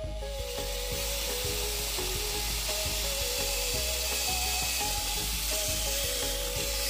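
Cordless drill boring through a lawn mower's plastic engine shroud: a steady noisy whir of the bit cutting plastic.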